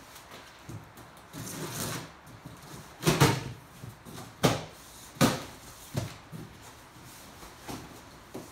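A cardboard shipping box being opened by hand: packing tape slit with a box cutter and the cardboard flaps pulled apart. A scratchy cut comes first, then four loud, short rips about a second apart, and fainter ones near the end.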